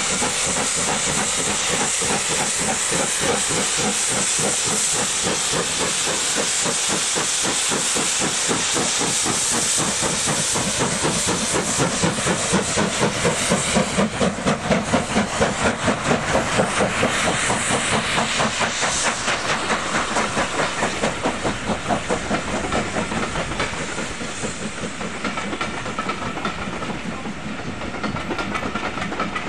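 Two LMS Black Five 4-6-0 steam locomotives working hard together to pull a train away: a loud steam hiss over a fast, steady beat of exhaust chuffs. The beats are strongest as the engines pass, about a dozen seconds in, then ease as the coaches roll by near the end.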